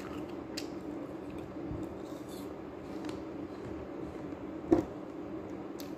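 Someone chewing crunchy food: a few short, crisp crunches, the loudest about three-quarters of the way through, over a steady low hum.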